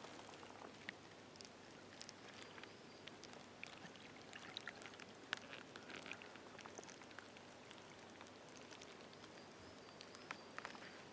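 Faint crackling of a wood campfire: scattered small ticks and pops over a soft hiss.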